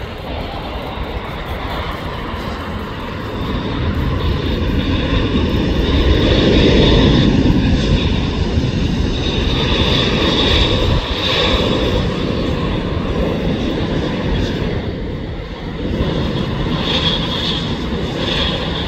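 Airbus A320-family airliner's twin jet engines running loud during its landing roll, swelling to a peak several seconds in and easing off afterwards, with a high steady whine over the rumble.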